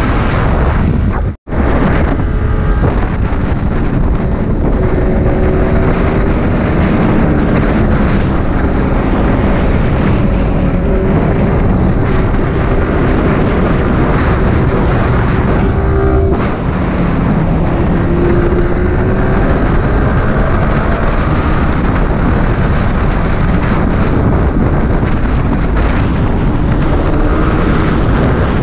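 Yamaha R15 V3 motorcycle engine pulling hard at speed under heavy wind noise on the microphone, its note rising and falling as the rider accelerates and eases off. The audio drops out for an instant about a second and a half in.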